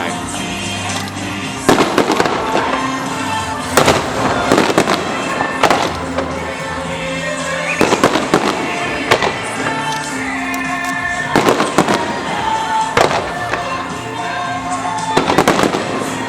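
Fireworks shells bursting in a string of sharp bangs, one every second or two, with music playing throughout.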